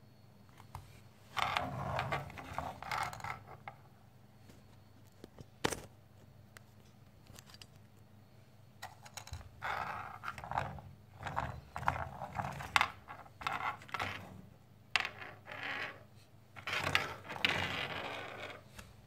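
Ice-cream-stick model bullock cart handled and rolled across a tabletop: light wooden clattering and scraping in irregular bursts. There is a short burst near the start, a single sharp click, then a longer run of clattering through the second half.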